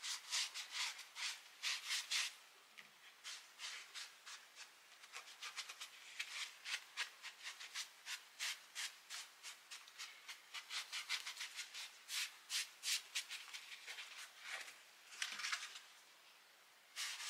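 Foam sponge brush scrubbing a coffee grunge stain onto painted stuffed fabric candy corns. It makes faint, quick rubbing strokes, a few a second, with a short pause near the end.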